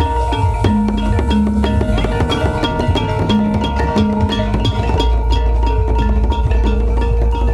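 Processional gamelan ensemble playing: bronze-keyed metallophones and small hand-held gongs ring held tones over a two-headed kendang drum, with sharp metal strikes keeping a quick steady beat.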